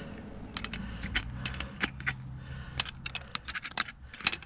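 Light metallic clicking and scraping of a thin tool against the gears inside an open rear differential as an axle C-clip is worked loose: many sharp, irregular ticks.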